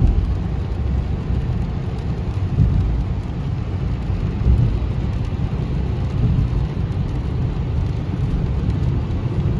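Car driving on a rain-soaked highway, heard from inside the cabin: a steady low rumble of road and tyre noise with rain and spray on the car.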